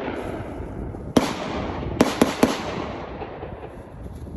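Gunshots from other shooters: a single shot about a second in, then three quick shots about a quarter second apart, each followed by a long rolling echo.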